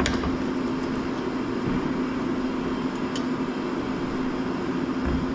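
Steady mechanical hum with a constant low tone, broken by a couple of faint clicks.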